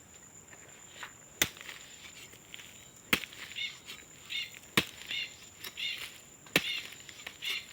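A hoe chopping into dry soil with four sharp strikes, about one every second and a half to two seconds, loosening the ground to dig a hole for cassava cuttings.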